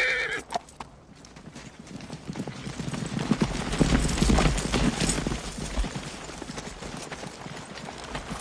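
A group of horses galloping on packed dirt, a dense clatter of hoofbeats that builds to its loudest a few seconds in and then eases off as the riders slow.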